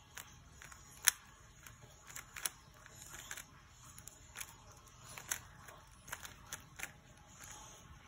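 Layers of a stickerless 3x3 speed cube clicking as they are turned quickly by hand: an irregular run of sharp clicks, the loudest about a second in.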